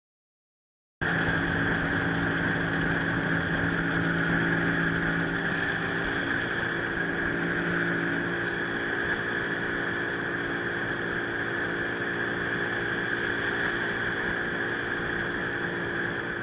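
Outboard motor of a fishing boat running steadily at speed, with a constant hiss over its drone. It cuts in abruptly about a second in.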